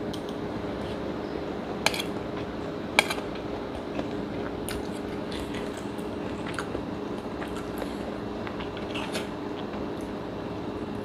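Metal spoon clinking and scraping against a ceramic bowl of fried rice, with two sharper clinks about two and three seconds in and lighter ticks after, over a steady low hum.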